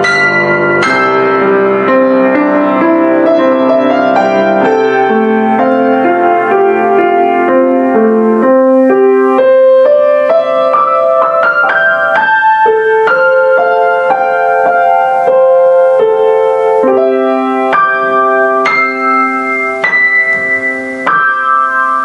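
Piano music: a melody of struck notes over sustained chords.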